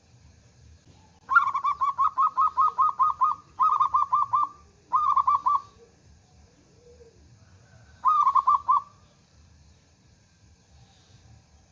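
Zebra dove (perkutut) calling: a fast run of clipped cooing notes, about five a second, then two shorter runs and, after a pause of a couple of seconds, one last short run. It is a loud local perkutut's song, used as a lure call to set other perkutut singing.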